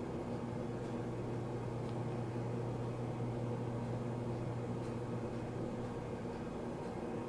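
Steady low electrical hum with a faint even hiss: room tone with no programme audio.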